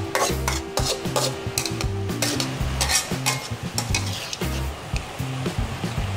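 Metal spatula scraping and knocking against a flat metal pan over and over while frog meat and holy basil are stir-fried, with the food sizzling in the hot pan.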